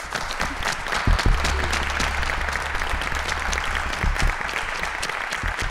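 Applause: a small group clapping steadily.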